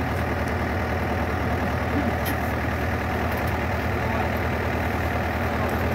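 Yanmar combine harvester running steadily at constant speed, its diesel engine and threshing machinery working as grain is bagged.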